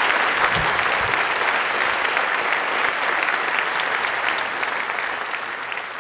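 Audience applauding, a steady patter of many hands clapping that gradually begins to fade toward the end.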